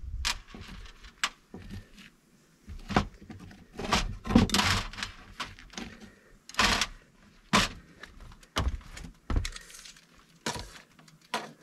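Hand tools clanking and knocking as they are set down and picked up on sheet-metal flashing over a metal roof: a string of sharp knocks roughly every second, with one longer, noisier stretch about four seconds in.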